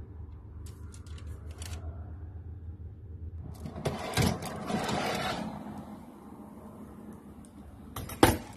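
A baking tray being handled at the oven: a scraping rustle about four seconds in and a single sharp clack near the end, over a steady low hum.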